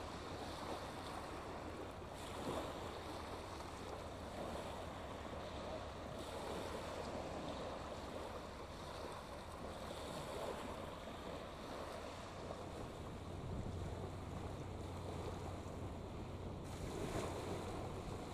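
Small waves washing onto a shingle beach, swelling and falling every few seconds, with wind on the microphone.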